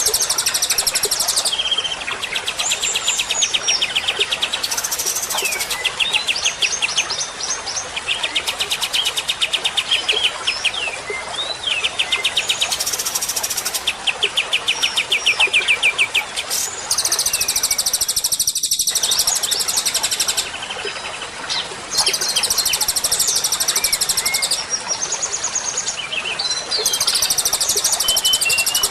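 Songbird song from a 'masteran' recording, meant for white-rumped shamas to learn from: rapid trills alternate with high, chattering phrases, over and over. The sound drops out briefly about two-thirds of the way through, as at a splice.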